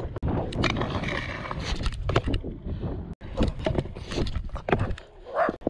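Stunt scooter rolling on concrete with a low wheel rumble, broken by irregular clacks and knocks as it rides over seams and ramp transitions.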